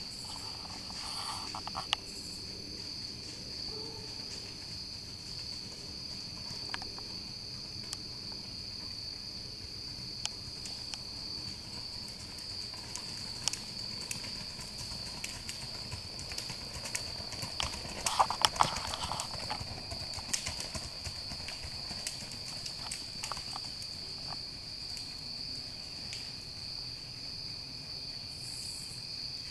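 Hoofbeats of a gray horse moving at a four-beat racking gait on a dirt trail, scattered at first and loudest as it passes about two-thirds of the way in. A steady high chorus of crickets runs underneath.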